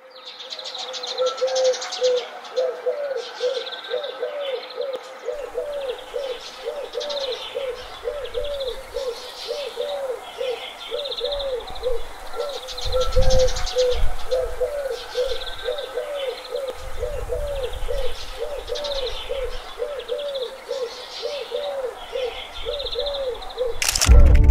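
Birds calling: a low cooing call repeated about twice a second, with higher chirps over it and a few low rumbles in the middle. Loud brass music cuts in at the very end.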